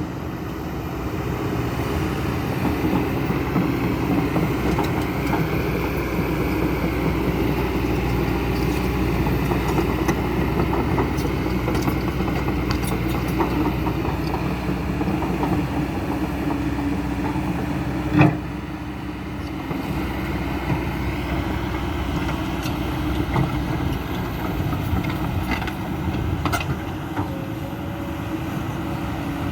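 Diesel engine of a Kobelco SK200-10 excavator running steadily while it works, with a single sharp knock about eighteen seconds in.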